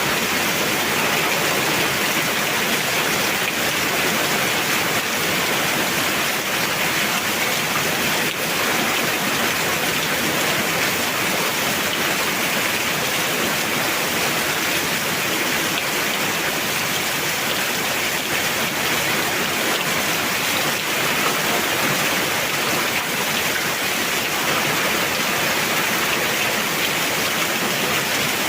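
Heavy rain falling steadily: a dense, even hiss of rain on surfaces that doesn't let up.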